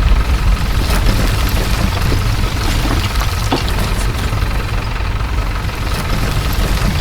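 Steady engine-like running of radio-controlled model construction machines, a miniature truck and excavator, with scattered small clicks.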